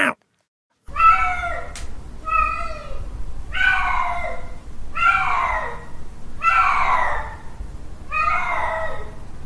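Male cat's mating call: a series of about six drawn-out yowls, roughly one every second and a half, each sliding down in pitch at its end. The series starts about a second in, after a brief silence, over a low steady hum.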